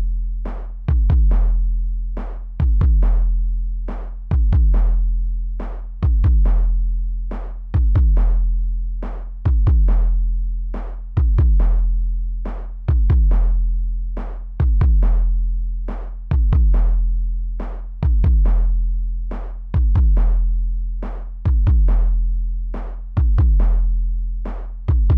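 Electronic music with a drum machine: a deep kick drum about every second and a half, with fainter clicking hits between, over a steady low bass tone that jumps up at each kick and fades until the next.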